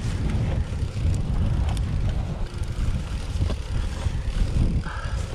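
Commencal Meta v4.2 mountain bike rolling down a steep grassy hillside: a steady low rumble of tyres over tussock grass and wind on the microphone, with scattered clicks and rattles from the bike.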